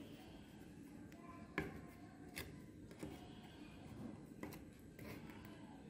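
Faint handling noises: a few light clicks and taps as ice pops on wooden sticks are moved about on a plate, the sharpest about a second and a half in.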